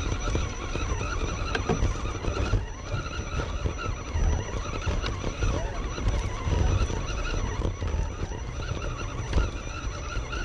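Radio-controlled rock crawler driving, its electric motor and gears whining, under a heavy uneven low rumble.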